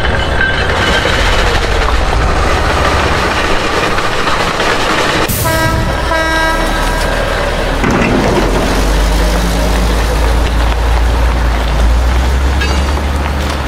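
Heavy machinery running with a steady engine rumble and clatter. A horn gives two short toots a little past halfway, and the deep engine rumble grows heavier afterwards.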